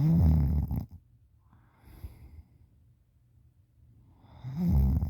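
A sleeping person snoring with the mouth open, wet-sounding. There are two loud snores about four and a half seconds apart, with a soft breath out between them.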